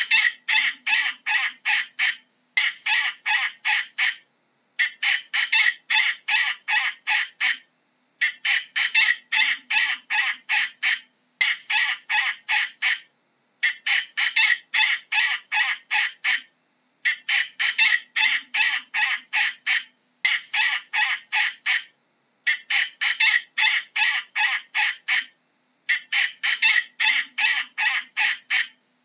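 Falcon calling in rapid runs of sharp kak-kak notes, about five a second, each run lasting one to three seconds with short pauses between, over and over.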